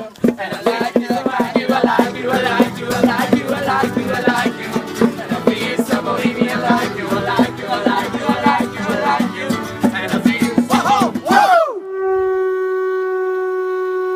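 Acoustic band music: strummed acoustic guitars with hand percussion, ending in a brief sliding note about eleven seconds in. Then a single long vuvuzela note, held steady.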